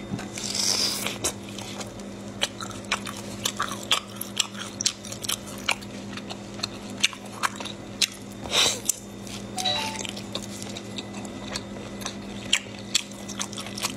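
Close-up biting and chewing of a sauce-coated octopus leg, with many short clicks and smacks of the mouth.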